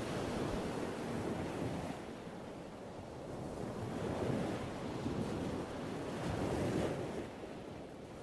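Ocean surf: waves breaking and washing in, swelling and easing in a continuous rush, with surges about 4 and 7 seconds in.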